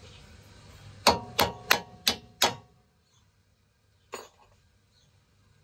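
Hammer blows on a steel bolt: five quick ringing metallic strikes about a third of a second apart, then one more strike about a second and a half later, driving the lower control arm's mounting bolt out of its bushing.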